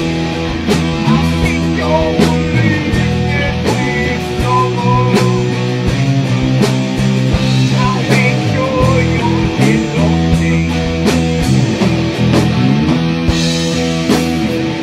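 Rock music soundtrack with guitar and drum hits.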